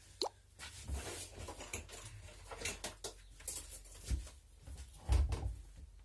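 Handling noises from objects being moved about on a workbench. A brief rising squeak comes right at the start, then scattered rustles, clicks and knocks, with the loudest thumps about four and five seconds in.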